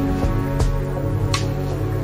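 Calm background music: sustained notes over a steady beat, with a hit about every three-quarters of a second.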